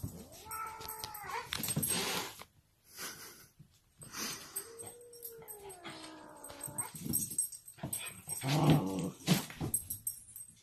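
Dog whining in two long, drawn-out notes that slide down in pitch, then a short low growl near the end.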